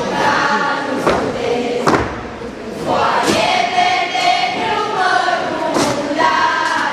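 A group of girls' voices singing a folk tune together, with held notes, over the occasional thud of dancers' feet stamping on a wooden stage.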